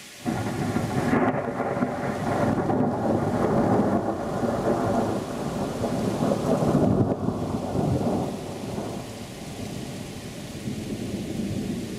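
A long roll of thunder starts suddenly right at the start and rumbles unevenly for several seconds. It then fades gradually toward the end, over the steady hiss of heavy rain and snow.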